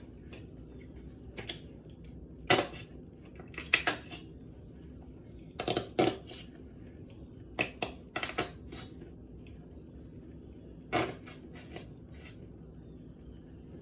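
A utensil knocking and clinking against a jar and bowl while scooping mayonnaise out: a dozen or so sharp separate taps and knocks at uneven intervals.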